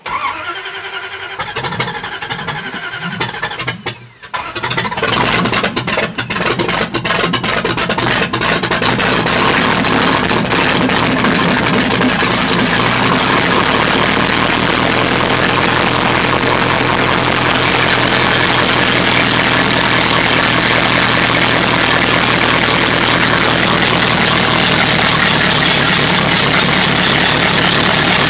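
A Jeep Wrangler's 5.2-litre V8 cranks for about four seconds, then catches and runs, unevenly for a few seconds and then steadily. This is a hard start.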